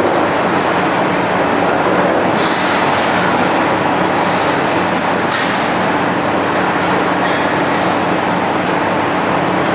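Automatic sheet-metal punching machine running: a steady, loud mechanical rumble and hum, with a few brief hissy bursts.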